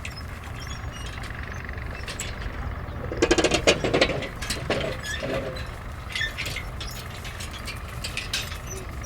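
A metal contraption making mechanical sounds: scattered metallic clinks and clicks over a steady low hum, with a rapid rattling run about three seconds in and two short ones just after.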